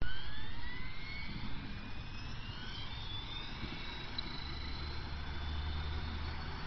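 Align T-Rex 450 electric RC helicopter spooling up: the motor and gear whine rises in pitch over the first few seconds as the rotor comes up to speed, then holds steady. A low rumble joins about halfway in.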